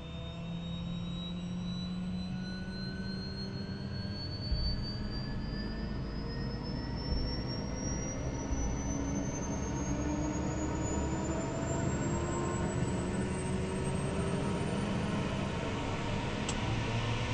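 Helicopter engine and rotor running up after start, heard inside the cabin: a high whine climbs steadily in pitch over a low drone as the rotor gathers speed, getting gradually louder. A single thump comes about four seconds in.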